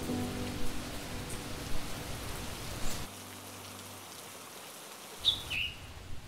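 Rain falling, with a few louder drops striking a surface now and then; about three seconds in it drops to a softer, even hiss. A short falling chirp sounds near the end.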